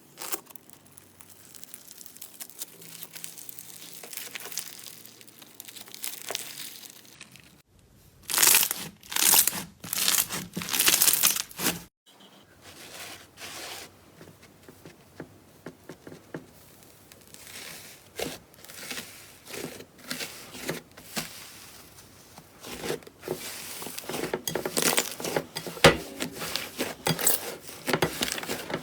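Slime being squeezed and worked by hand, giving dense short crackles and pops. The crackling is quiet at first, grows loud for a few seconds, stops suddenly, and builds up again near the end.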